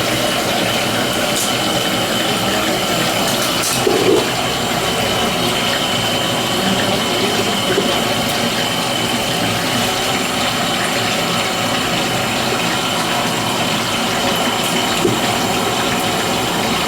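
Steady rushing, water-like noise at an even level, with a faint high steady tone running through it and a small knock about four seconds in.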